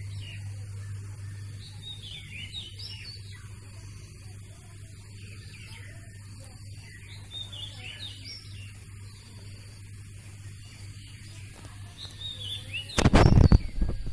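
Birds chirping in short, quick, falling calls over a steady low hum. About a second before the end, a loud rumbling noise takes over.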